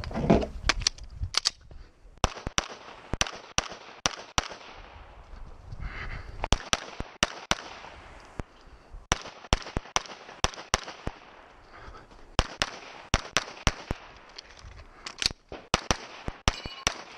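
Rapid pistol fire from a Glock 35 .40 S&W race gun: quick strings of shots, many in fast pairs, broken by pauses of one to two seconds.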